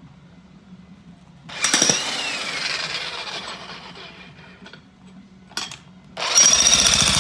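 Jackhammer run in bursts. A loud burst starts about a second and a half in and fades over a few seconds, there is a brief burst around the middle, and it runs loudly again near the end.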